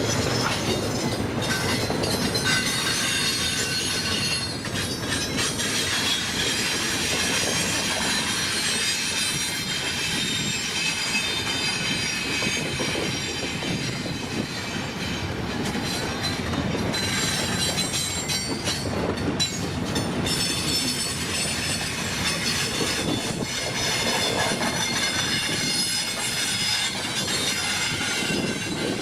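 A long CPKC intermodal container train's cars rolling past steadily, wheels clicking over the rail joints, with high-pitched wheel squeal.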